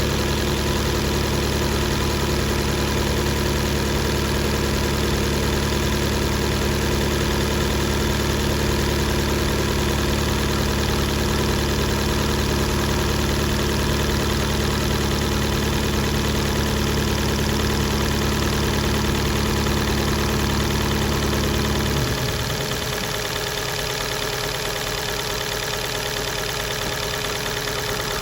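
2018 Fiat 500's 1.4-litre four-cylinder engine running with a bad misfire, steady but uneven; its deep low rumble drops away about 22 seconds in. The misfire comes from valves damaged by spark-plug debris after the tank was filled with diesel, leaving cylinders with low compression.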